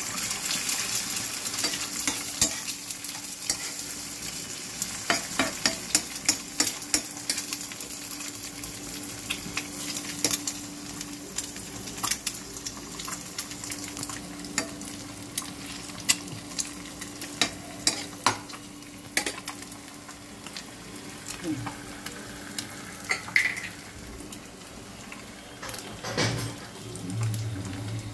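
An egg frying with sliced onions in a non-stick frying pan, sizzling steadily, while a silicone spatula scrapes and taps against the pan as it breaks up and stirs the egg.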